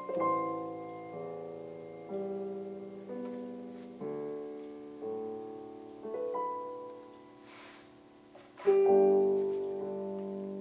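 Background piano music: single notes and chords struck about once a second, each fading away, with a louder chord near the end.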